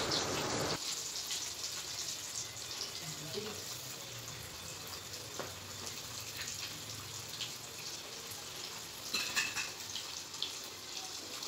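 Marinated fish steaks deep-frying in hot oil: a steady sizzling hiss with scattered crackles and pops, a few louder crackles about nine seconds in.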